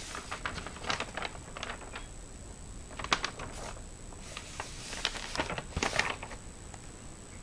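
Sketchbook paper pages being handled and turned: rustling with small clicks and taps, in short clusters near the start, about three seconds in and again five to six seconds in.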